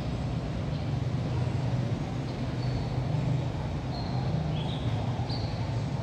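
Steady low outdoor rumble, with a few short, faint, high-pitched bird chirps scattered through the middle and later part.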